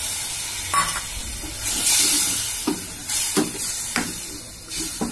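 Spiced onion-tomato masala, thinned with a little water, sizzling in a metal pot while a wooden spoon stirs and scrapes it in repeated strokes, a little under one a second.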